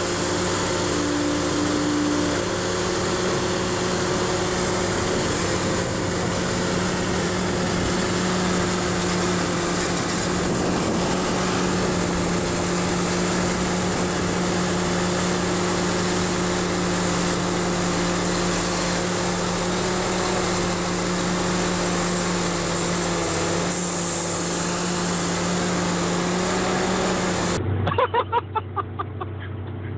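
Diesel engines of an excavator loading an articulated dump truck, running at a steady, unchanging pitch. Near the end the sound cuts off abruptly and a short run of quick, fading knocks follows.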